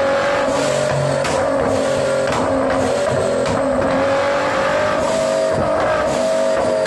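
Nissan GT-R R35's 3.8-litre twin-turbo V6 running at high, steady revs on a chassis dyno through an aftermarket valved catback exhaust with a catless downpipe. The engine holds one steady pitch, which climbs a little about five seconds in.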